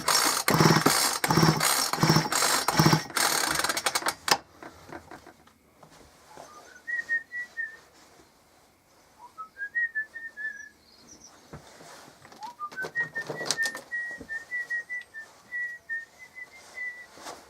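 A man whistling a tune in three short phrases, each sliding up to a high held note, with a few light knocks while he works. For the first four seconds there is a loud, rhythmic rasping noise.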